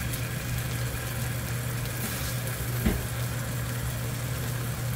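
Instant noodles and jjajang sauce sizzling in melted butter in a frying pan, over a steady low hum. A soft knock sounds about three seconds in.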